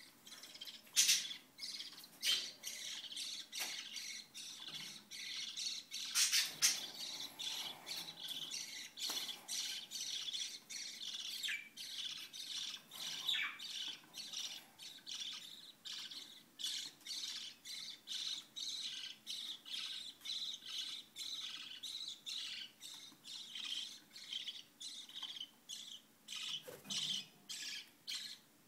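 Lovebirds giving a steady run of short, shrill squawks, about two to three a second, with a few louder calls early in the sequence.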